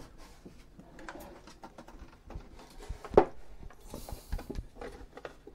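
Thick plastic lid of a lab scanner lifted off its base and set down: scattered knocks, clicks and scrapes, with one sharp knock about three seconds in.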